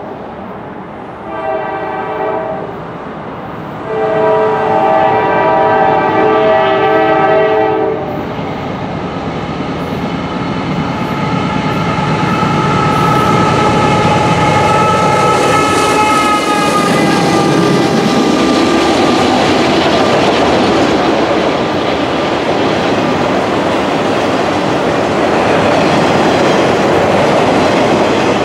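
Norfolk Southern GE diesel locomotives sound their air horn, a chord of several tones, in a short blast and then a long one for the grade crossing. The locomotives then work past, their engine pitch dropping as they go by about 17 seconds in, followed by the steady clickety-clack of autorack cars rolling past.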